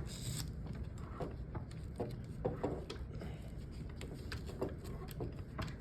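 Small clicks and rustles of a drill rifle's sling being worked loose and handled, with a sharper click or knock near the end.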